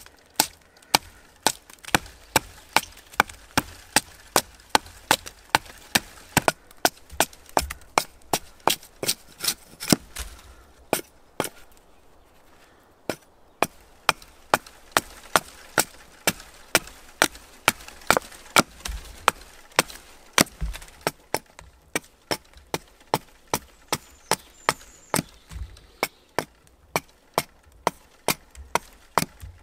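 Hand axe hewing one face of a wooden pole flat, with quick short chops into the wood at about two to three a second and a brief pause about eleven seconds in.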